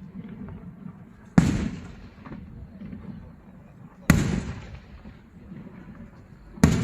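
Daytime aerial fireworks display: three loud bangs from bursting shells, evenly spaced about two and a half seconds apart, each echoing away before the next.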